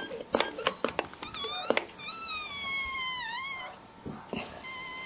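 Trigger of an Udderly EZ hand-pump mare milker squeezed in quick clicks, about two a second, pumping the vacuum back up to draw more colostrum. Then a high-pitched squeal that wavers and falls, and about a second later a long, steady high tone.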